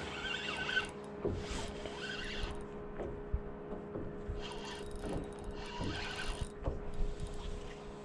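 Spinning reel being cranked in short bursts of about a second, four times, as a fish is played on a hard-bent rod, over a steady low hum.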